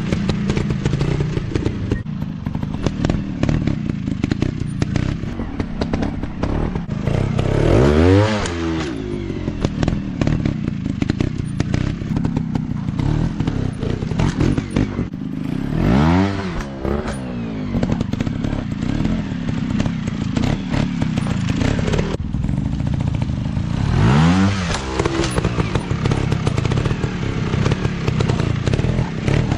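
Dirt bike engines running steadily, with three revs close by, about eight seconds apart, each rising in pitch and then dropping back.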